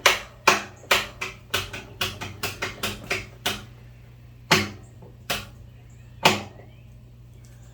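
Sharp clacks and clinks of hard objects being handled: a quick irregular run of about a dozen in the first three and a half seconds, then three single knocks about a second apart.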